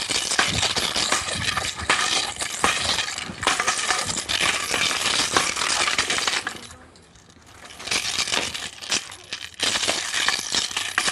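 Wooden three-sectional staff being twirled and swung, its metal chain links jingling and clattering in quick, dense clicks. The rattling drops away for about a second just past the middle, then resumes.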